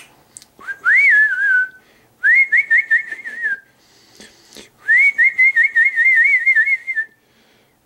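Clear, high whistling in three phrases, each sliding up and then warbling quickly up and down around one pitch. The last phrase is the longest.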